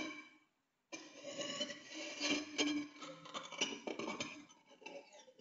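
Amplified whisker phone, a piezo pickup on a carbon-fibre filament, scraped and flicked along an office chair. Through the amp this gives a run of scratchy clicks with ringing pitched tones, starting about a second in and fading near the end.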